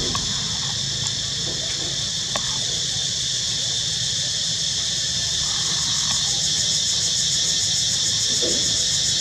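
Steady, high-pitched drone of insects, pulsing finely and evenly, over a steady low rumble.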